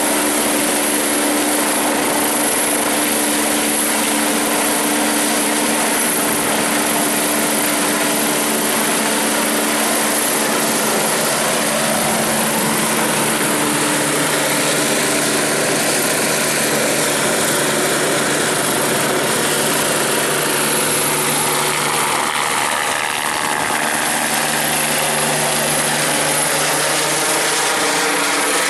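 Airbus H145 (EC145) twin-engine helicopter climbing away overhead: continuous turbine whine and rotor noise, loud and steady at first, with the tone sliding and wavering in the last several seconds as it moves off.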